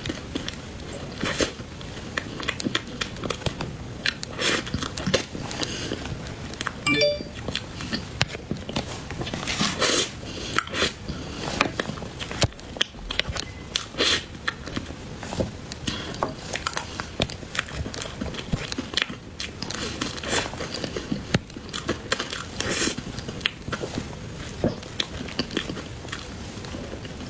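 Close-miked eating of cream cake: repeated bites and chewing with crackling, crunchy clicks, plus a short pitched squeak about seven seconds in.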